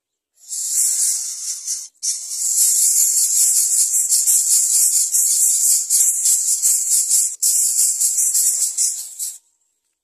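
Greater coucal nestlings begging with a loud, raspy hiss made of rapid pulses, broken twice for an instant and cutting off abruptly near the end.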